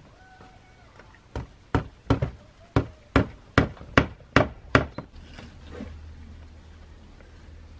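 A series of about ten sharp knocks, two to three a second, of a hand tool striking wood. They stop a little under five seconds in.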